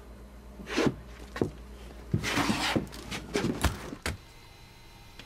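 A heavy metal door being worked open: a rushing scrape followed by several sharp clicks and knocks, with a deep thump about three and a half seconds in, over a low steady hum.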